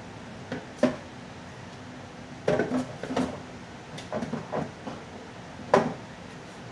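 Eating utensil clinking and scraping against a dish of potato salad in a string of short, irregular knocks, the sharpest about a second in and again near the end.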